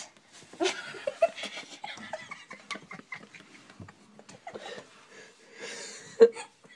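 A cat in a sweater scrabbling on stairs: scattered soft scuffs and knocks, then one sharp thump near the end as it stumbles.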